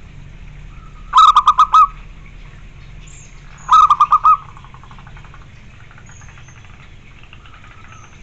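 Zebra dove (perkutut) cooing: two loud bouts of about five quick staccato coos each, one about a second in and one about four seconds in, with fainter coos after them.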